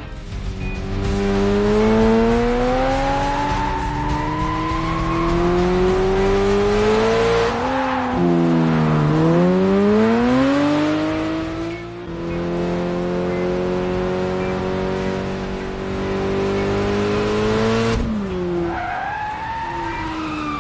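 Race car engine accelerating hard through the gears: the pitch climbs steadily, drops sharply at each gear change (about eight, twelve and eighteen seconds in) and climbs again.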